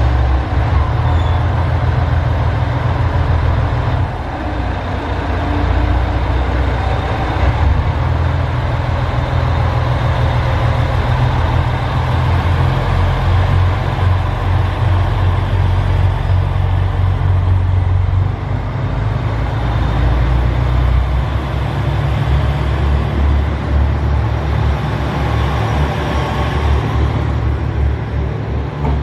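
JR Shikoku 2000 series diesel multiple unit pulling out of the station, its diesel engines working under power with a deep, steady rumble as the cars roll past.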